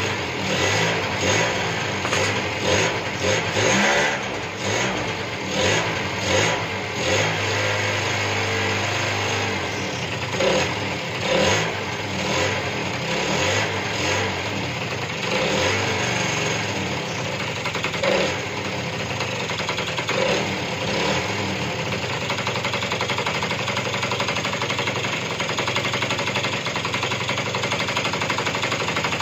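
Junak 806's 50cc two-stroke scooter engine running on a newly fitted carburettor, blipped up and down repeatedly, then settling to a steady idle about two-thirds of the way through, with the idle speed just turned up.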